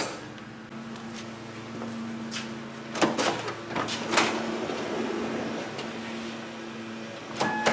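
2009 Honda Odyssey power sliding door rolling along its track on a newly fitted center roller hinge as it is pushed by hand, with sharp clunks about three and four seconds in. An electronic beeping starts near the end.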